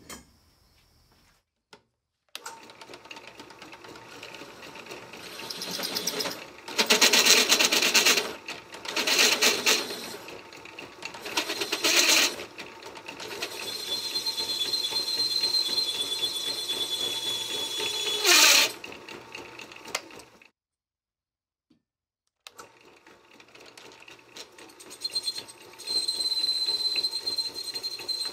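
Drill press cutting holes in a stainless steel square-tube runner with a 7/8-inch hole saw, in several stretches with louder, rougher spells. During the steadier cutting a high-pitched squeal rings out of the steel.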